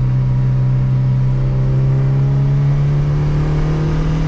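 Turbocharged Honda F20B four-cylinder engine pulling under load during a gentle acceleration run, its note climbing slowly and steadily.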